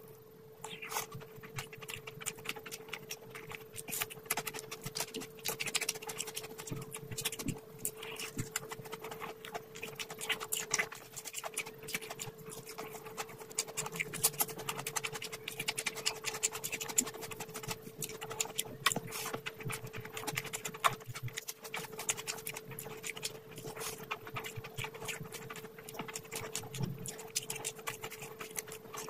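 Close-up eating sounds: wet chewing, lip-smacking and many small mouth clicks as a person eats spiced rice and fried fish by hand. A faint steady hum sits underneath.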